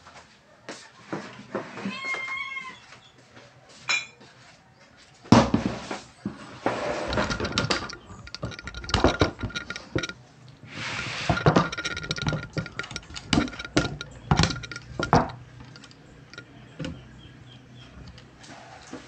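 Close handling noise: a run of knocks, clinks and rustles as a ceramic mug and other things are set down and moved on a table, loudest in the middle. A short pitched call like a cat's meow comes about two seconds in.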